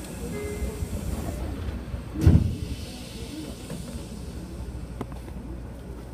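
Steady low rumble inside a Shin-Keisei train standing at a platform, with a hiss that stops about a second and a half in. One heavy low thump comes about two seconds in.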